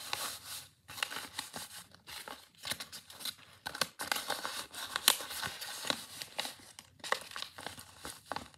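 Paper being handled and worked close up: irregular rustling with many small crackles.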